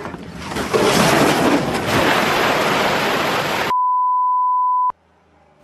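Dashcam audio from a moving car: a steady rushing of road and wind noise, then a single beep of about a second at one steady pitch, a broadcast censor bleep, cut off abruptly.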